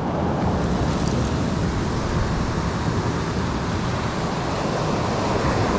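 Ocean surf breaking on a rocky cobble beach: a steady rush of waves.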